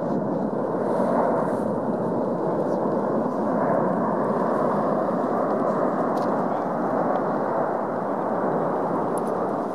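The La Palma volcano's vent erupting, lava fountaining from the cone: a continuous, steady, deep rushing noise that does not let up.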